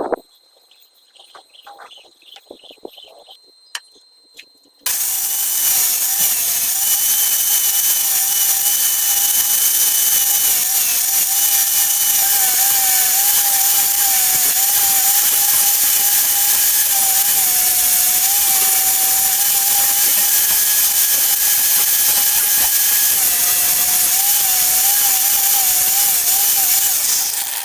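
A small high-speed electric hand tool starts about five seconds in and runs at a steady speed, with a slightly wavering motor whine over a strong hiss, then stops at the end. A few light clicks and knocks come before it.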